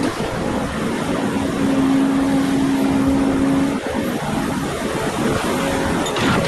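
Diesel engines of earthmoving machines, an excavator and a bulldozer, running steadily. A steady tone rises over the engine noise for a couple of seconds, and there is a brief sharp noise near the end.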